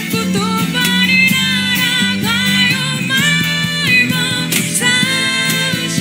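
Live acoustic pop band: a woman singing lead with long held and sliding notes over strummed acoustic guitars.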